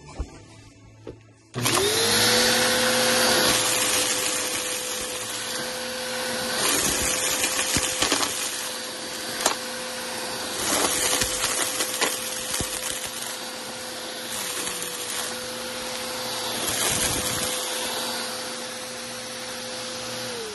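Vacuum cleaner switched on about a second and a half in, its motor spinning up to a steady whine as it is run over a shag rug. Scattered sharp crackles come from debris being sucked up. The motor winds down at the very end.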